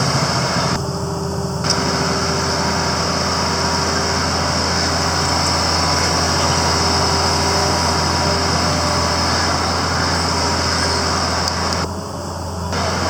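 Steady engine noise of road-construction machinery and road traffic, running continuously with a low hum.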